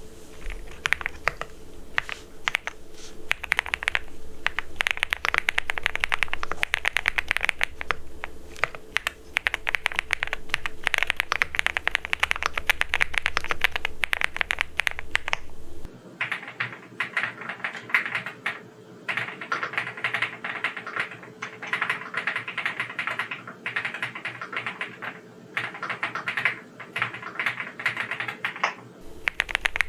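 Rainy75 75% mechanical keyboard fitted with Midnight switches being typed on: a steady stream of rapid keystrokes. About halfway through, a low hum underneath drops away.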